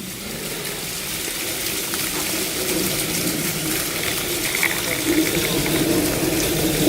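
Small waterfall: a steady rush of falling water that grows gradually louder.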